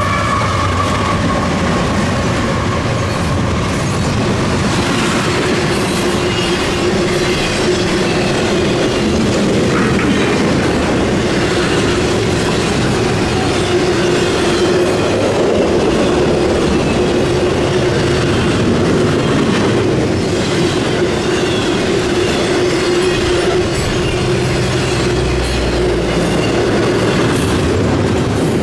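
CSX intermodal freight cars, carrying trailers and double-stack containers on well cars, rolling past at speed: a steady loud rumble of steel wheels on rail with clickety-clack over the rail joints. A steady whine from the wheels runs underneath from a few seconds in.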